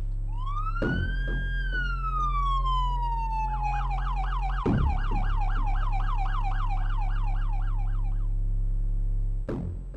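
Siren of an emergency vehicle: one long wail that rises, holds and falls, then changes to a fast yelp of about four cycles a second that stops shortly before the end. Low thumps come at about one second and again near five seconds, over a steady low hum.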